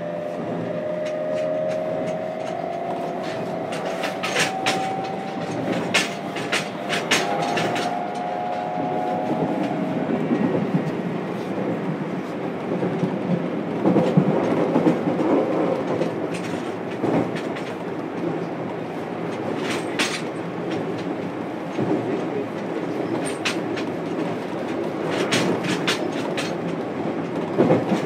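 Interior running sound of a JR Kyushu 303 series motor car. Its Toyo Denki IGBT-VVVF inverter and traction motors whine, rising in pitch as the train accelerates for the first several seconds. After that comes a steady rolling rumble, with clusters of wheel clicks over rail joints several times.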